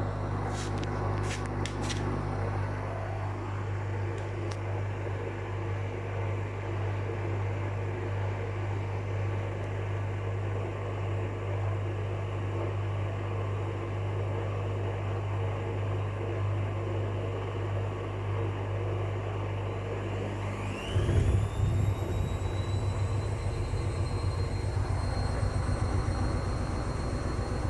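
Whirlpool FL 5065 front-loading washing machine running with a steady low hum and a few clicks near the start. About 21 seconds in, its motor speeds up into the spin with a quickly rising whine that levels off, and a fast, pulsing rumble from the drum of an unbalanced load.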